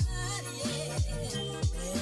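Background music with a steady beat of deep bass drum hits and bass notes.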